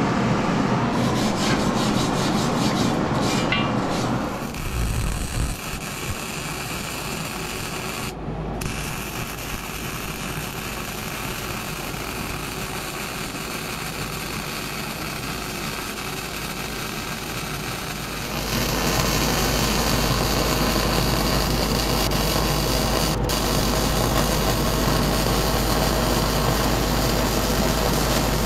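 Wire-feed (MIG) welder arc hissing and crackling steadily as beads are run on steel square tubing. The welding noise grows louder, with a low hum underneath, from about two-thirds of the way through.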